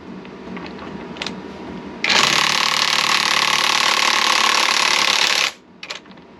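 Power impact wrench hammering for about three and a half seconds, starting about two seconds in, undoing a tight nut on the engine while the crank is wedged to stop it turning. A few light clicks of handling come before and after.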